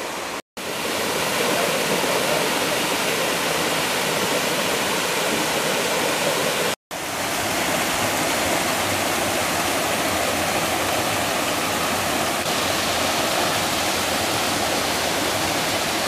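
Rocky mountain stream rushing over boulders, a steady even rush of water, broken by two brief silent gaps about half a second and about seven seconds in.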